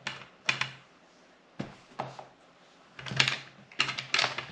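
A folding metal tablet wall-mount arm being handled and unfolded: a series of sharp clicks and clacks, with a cluster of them near the end.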